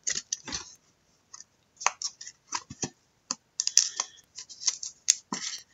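Irregular light clicks and scratchy rustles of small things being handled, coming in uneven clusters with short pauses between them.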